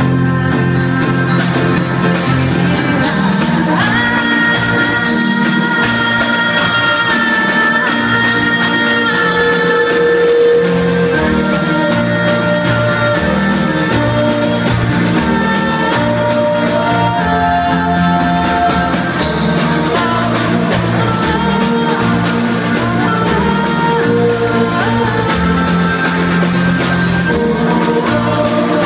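Live band playing a song through a PA, with a lead voice singing long held notes over guitar and a steady repeating bass line.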